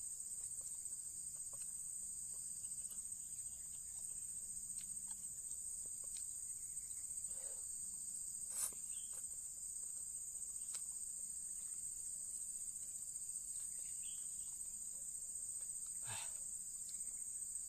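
Steady high-pitched insect chorus, with a few brief slurps of noodles, the clearest about eight and a half seconds in and near the end.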